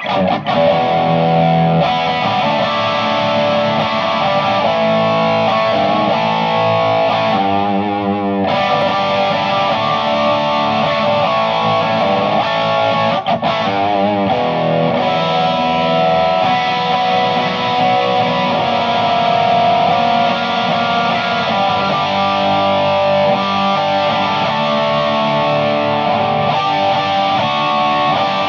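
Electric guitar played through a Naughty Amps Li'l Bitch amp head set for crunch, into an Orange speaker cabinet: distorted chords and riffs, with wavering held notes about eight seconds in and again near fourteen seconds.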